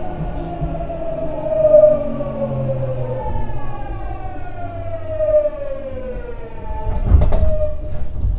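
Hitachi GTO-VVVF inverter and traction motors of a Tokyu 9000 series train whining under electric braking as the train slows into a station. The tone falls in pitch, jumps back up about three seconds in and falls again. A short burst of noise comes about seven seconds in, as the train is nearly stopped.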